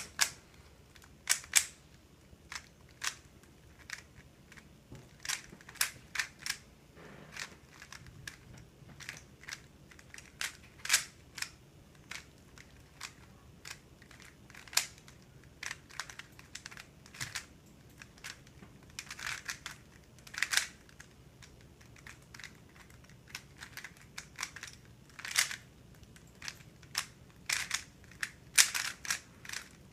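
A MoFangGe 3x3 speed cube being turned fast by hand, its plastic layers clicking and clacking in quick, irregular bursts of turns.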